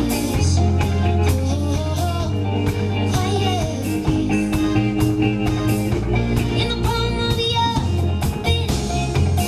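Live band music: a woman singing over electric guitar and bass guitar, with a steady beat.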